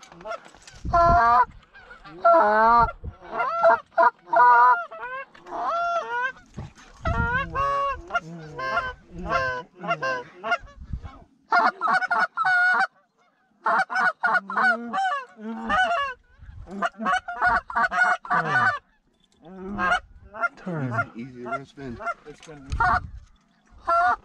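Canada goose calls blown by hand in a rapid, loud run of honks and clucks, pausing only briefly a few times, to work a flock in toward the decoys.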